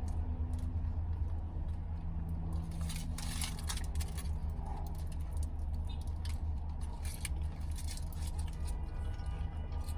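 Steady low hum inside a car cabin, with small scattered clicks and rustles.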